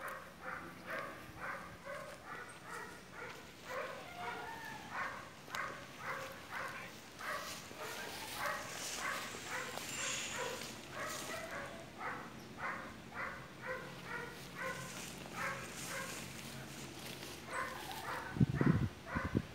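A dog barking over and over in the background, about two short barks a second, with a few low thumps near the end.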